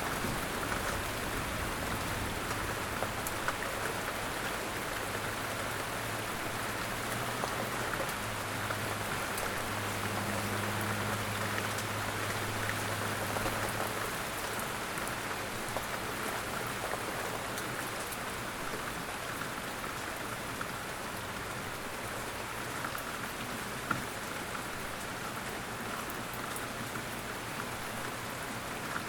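Steady rain falling on a surface, a dense, even patter of drops. A low steady hum runs under it for about the first half and then fades away.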